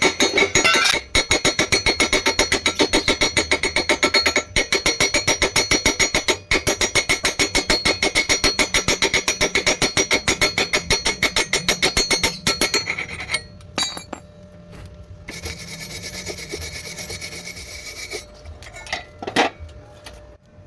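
Fast, even metal-on-metal strokes on a steel pipe, about six a second with a ringing edge, like a hand tool scrubbing or rasping the metal, stopping after about twelve seconds. A steady hiss follows for a couple of seconds, then a single knock.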